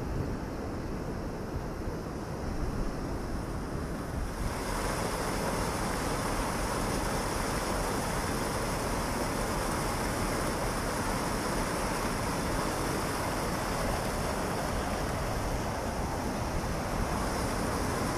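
Thames water rushing and churning through Hambleden weir's gates, a steady rush of white water that grows louder about four seconds in.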